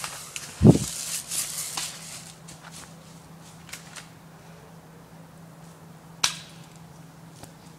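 Rustling and movement noise with a loud low thump about a second in, then a few faint clicks and one sharp crack about six seconds in, over a steady low hum.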